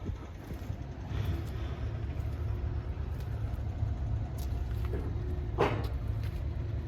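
Steady low rumble, with a brief pitched sound that rises and falls about five and a half seconds in.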